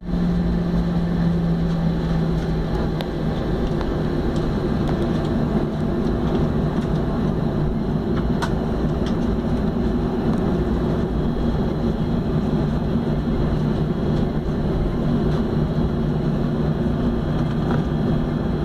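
Jet airliner's engines running at low taxi power, heard inside the passenger cabin as a steady droning hum over cabin air rush. The hum's pitch shifts slightly about three seconds in.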